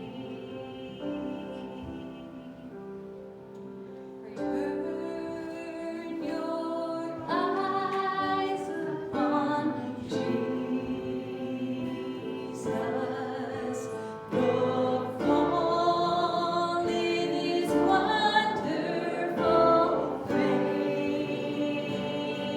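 Worship music: voices singing a hymn together over instrumental accompaniment, swelling louder about four seconds in.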